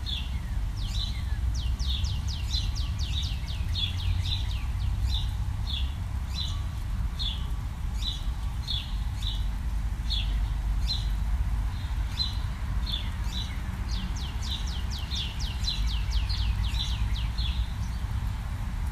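A small bird chirping over and over, about two chirps a second, twice breaking into quick runs of falling trilled notes, over a steady low hum.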